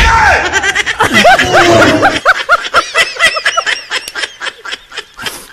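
A person laughing in a long, rapid run of short pulses, about four a second, growing fainter toward the end.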